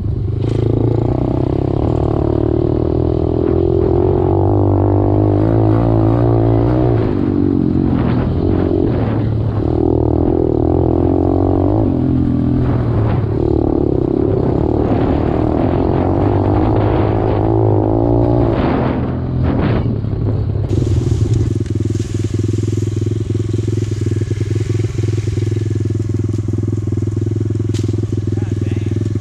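125cc dirt bike engine running while ridden, its revs rising and falling as the throttle is worked. About 20 seconds in the sound changes abruptly to a steadier, lower engine note with more hiss.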